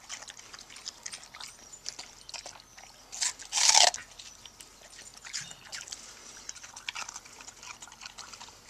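A shepherd puppy chewing and crunching watermelon rind: a run of wet, crackling bites and clicks, with one much louder crunching burst about three and a half seconds in.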